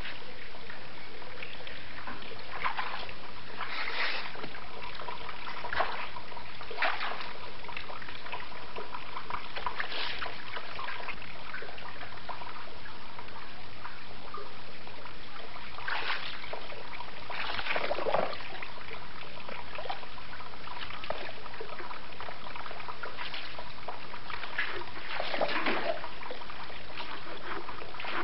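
Water splashing and sloshing in short, irregular bursts, as of someone bathing by hand, over a steady background hiss.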